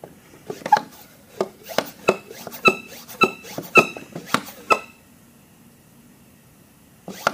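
Sharp clicks and short squeaky pops, roughly two a second, stopping about five seconds in, while oil is hand-pumped into a Gen III Hemi V8 with a garden sprayer and air is pushed out through the top end. This is the sound of the engine's oil passages being primed before first start.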